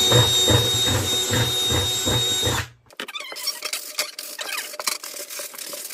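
Power drill running in a plastic bucket wall to widen a hole that is too small, a steady whine with a rhythmic chatter as the bit catches. It stops about two and a half seconds in, followed by light clicks and rustling of the bucket being handled.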